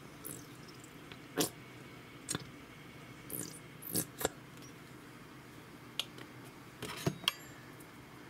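A squeeze bottle of honey Dijon mustard squirting onto raw beef: a scattering of short squelches and clicks, about nine in all, spread unevenly.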